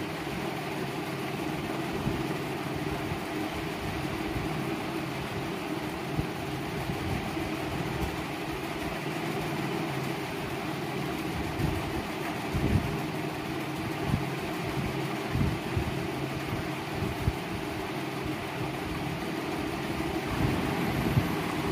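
Steady mechanical hum of a room appliance such as a fan, running evenly, with a few soft low thumps a little past the middle.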